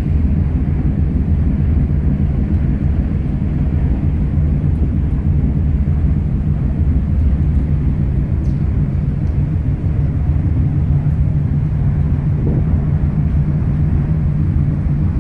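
Steady low rumble on the open deck of the coastal ship MS Lofoten under way: wind buffeting the microphone over the even drone of the ship's machinery.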